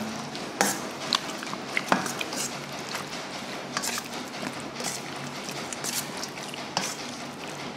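Metal spoon stirring oiled raw pork neck in a stainless steel bowl: wet squelching of the meat with scattered clinks and scrapes of the spoon against the bowl.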